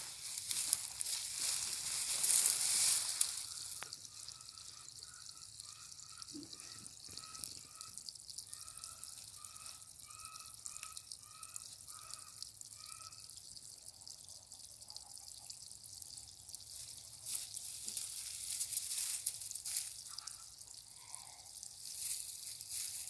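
Water trickling and dripping, loudest in the first few seconds. From about five to thirteen seconds in, a bird gives a run of short, evenly spaced notes, about two a second, with a couple more calls near the end.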